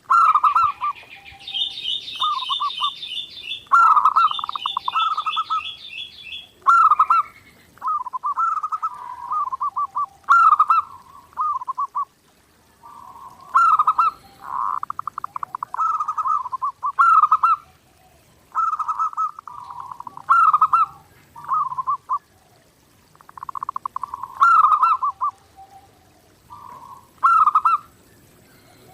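Zebra doves (perkutut) cooing: short phrases of quick, rolling coo notes, repeated over and over with brief pauses between them. For the first six seconds or so a higher, rapid chirping trill from another small bird runs over them.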